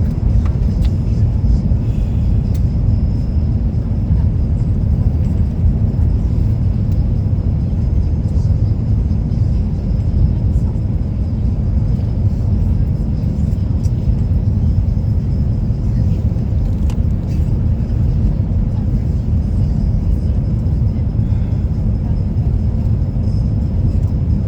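Airbus A350-900 cabin noise: a steady low rumble from the engines and airflow, with a faint constant high-pitched whine above it.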